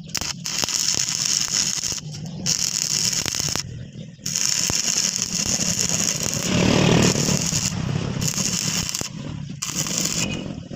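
Electric arc welding on a cracked truck chassis: a steady sizzling crackle from the arc in several stretches, each cutting off abruptly for a moment before the arc is struck again.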